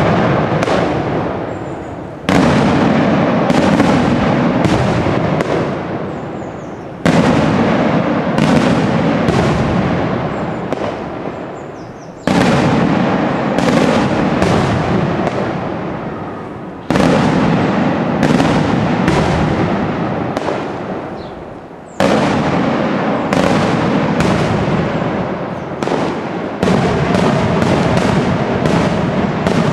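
Daytime aerial fireworks bursting overhead: a dense, continuous barrage of loud bangs with echoing tails. Fresh volleys begin about every five seconds.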